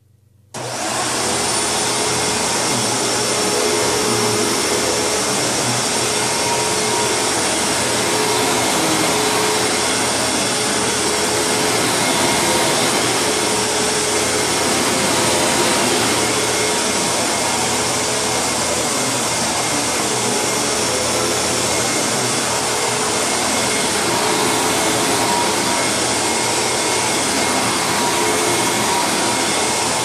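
Hoover WindTunnel Supreme upright vacuum cleaner switched on about half a second in. Its motor spins up with a brief rising whine, then runs steadily as it is pushed over carpet.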